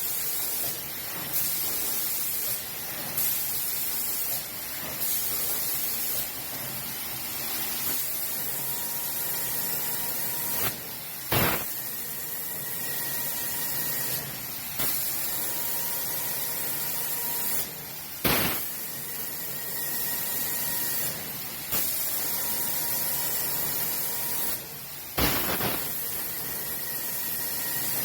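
Automatic CNC spray painting machine's spray gun hissing, cutting in and out every second or two as it passes over the work, with a sharper blast of air about every seven seconds and a faint high whine at times.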